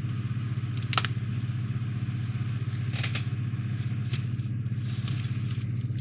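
A steady low hum, with a few light clicks and taps from handling the plastic model, the sharpest about a second in.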